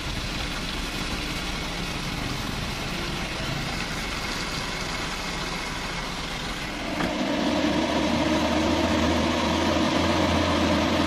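Diesel truck engines running; about seven seconds in, a louder, steady engine note takes over: a laden Mitsubishi Fuso truck pulling up a slippery mud slope.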